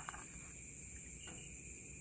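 Steady high-pitched insect trill, with faint sloshing of water in a plastic basin as a hand grips live catfish. There is a soft slosh a little past halfway.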